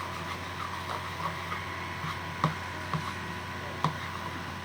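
A spoon stirring a thick shampoo-and-salt slime mixture in a bowl, with light irregular clicks of the spoon against the bowl every second or so.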